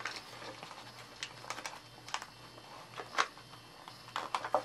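Irregular light clicks and taps of a plastic airsoft magazine being handled and pushed into a tape-covered canvas pouch, the sharpest about three seconds in.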